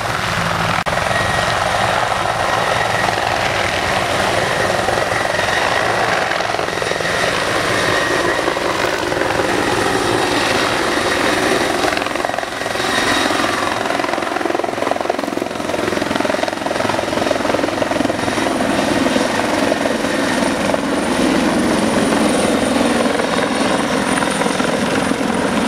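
Helicopter lifting off and passing low overhead, its rotor and turbine running steadily, with a thin high whine over the rotor noise.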